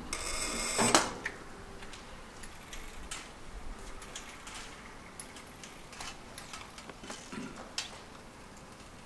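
Street sounds at a quiet residential junction: a short burst of hiss ends in a sharp click about a second in, then scattered light ticks and clicks over a low background.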